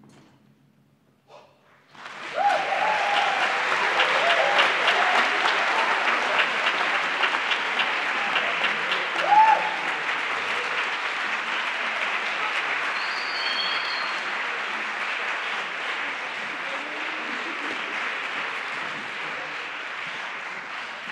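About two seconds of near silence, then a concert audience breaks into steady applause, with a few shouts and a brief high whistle in it; the clapping slowly thins out.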